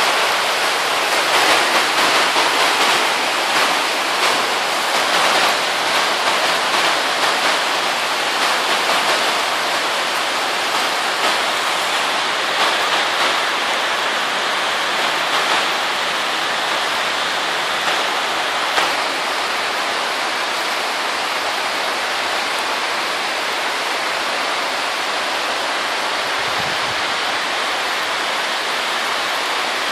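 Steady rain falling on the plastic sheeting of a polytunnel roof, a dense hiss of countless small hits. It is more uneven and a little heavier in the first half, then settles to an even, slightly softer patter.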